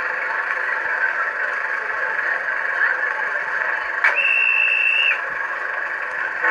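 LokSound V4 sound decoder in a model Class 22 diesel locomotive playing the standing engine's idle through its small speaker, a steady tinny rumble. About four seconds in, a click and then a single high whistle-like tone that lasts about a second.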